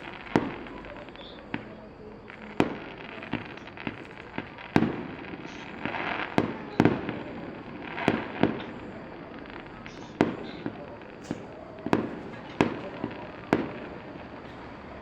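Fireworks going off in an irregular string of sharp bangs, sometimes two or three within a second, several with a short echoing tail.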